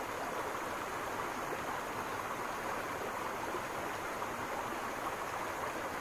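Steady, even rushing background noise, like running water, with no bird calls.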